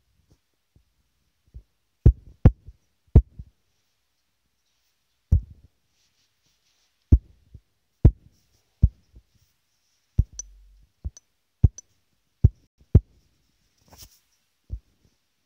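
About a dozen irregular dull taps and thumps of fingertips on a phone's touchscreen while drawing, picked up through the phone body by its own microphone, with a brief scratchy rustle near the end.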